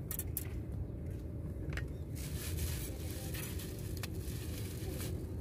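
Steady low outdoor rumble with a few light clicks and a short rustling hiss about two to three seconds in, from fishing tackle and a plastic bag being handled.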